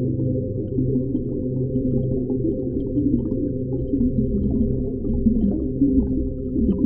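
Deep underwater ocean ambience: a steady, muffled low rumble with a low drone running through it and faint crackles and pops on top.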